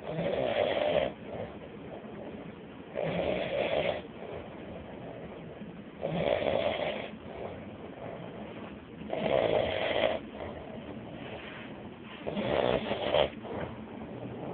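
Snoring: a rough snore about every three seconds, each lasting about a second, five in all.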